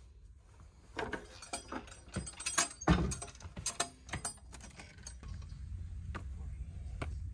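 A yurt's wooden door is unlatched and opened: a run of wooden clacks and knocks from the latch bar, handle and door starts about a second in, with the loudest knock near three seconds. From about five seconds a low steady rumble of wind on the microphone follows outdoors, with a few light knocks.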